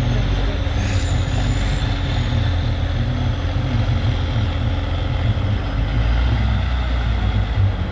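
Trial truck's engine running under low-speed load as the truck crawls over rough dirt mounds: a steady, heavy low rumble that swells briefly about six seconds in.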